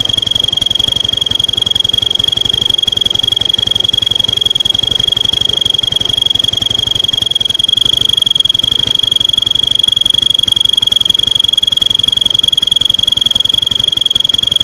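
Scooter engine running with a children's plastic toy trumpet fitted to its cam-chain breather hose, so the crankcase breath blows it into one steady high-pitched whistle over the engine's low pulse. The whistle holds one even pitch throughout and gets a little louder about halfway through.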